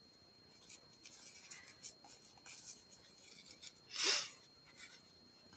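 Faint scratching and rubbing of a crochet hook pulling yarn through stitches, with one short breath about four seconds in.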